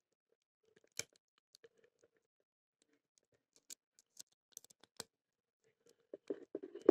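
Faint, scattered metallic clicks of a rake working the five spool pins of a BANE 771 pin-tumbler padlock under tension, raking for a set, with a quick run of clicks near the end.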